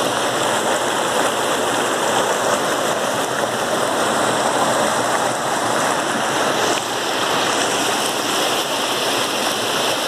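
Rushing water of a rocky mountain stream spilling down a small waterfall over granite boulders: a steady, even sound of flowing water.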